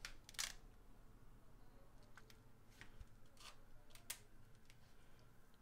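Near silence with a few faint scattered rustles and light clicks of a glossy cardboard Blu-ray digipak being handled as its panels are turned.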